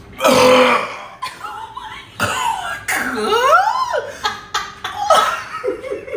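A loud, rough burp from a person who has just chugged a bottle of Sprite, then laughter: a wailing laugh that glides up and down in the middle and a quick run of ha-ha-ha pulses near the end.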